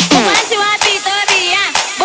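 Electronic dance music playing loud: a passage without the heavy bass, with pitched synth or vocal lines sliding up and down over a steady beat.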